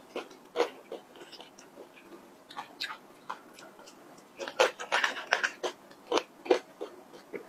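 Eating sounds: a plastic spoon scraping soft-serve ice cream in a plastic cup, and chewing and crunching of the almond and chocolate topping. Short irregular clicks and crunches, thickest in a cluster past the middle.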